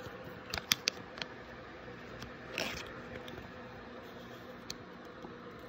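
Faint handling of a Pokémon trading card and a plastic card sleeve: a few light clicks in the first second or so, then a short plastic scrape about two and a half seconds in, over a faint steady hum.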